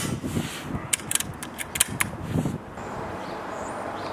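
A quick run of sharp clicks and knocks over the first two and a half seconds, from the Brocock Compatto PCP air rifle being handled. It then gives way to steady outdoor background with a few short, high bird chirps near the end.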